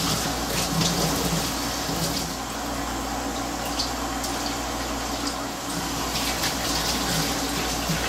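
Steady running water from a garden hose pouring into a utility sink as a wet otter pelt is rinsed under it, with a few faint handling ticks.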